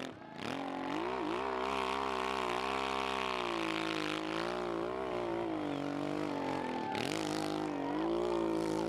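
Dirt bike engine revving hard under load on a steep hill climb, its pitch wavering as the rider works the throttle. The revs drop sharply just after the start and again about seven seconds in, then climb back.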